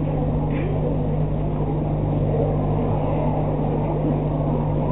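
A steady low hum over an even rushing noise, level throughout with no distinct events.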